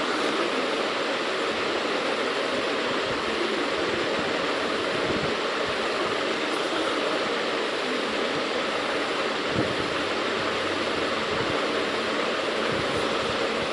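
Steady rushing background noise, even and unchanging, with one slight knock about two-thirds of the way through.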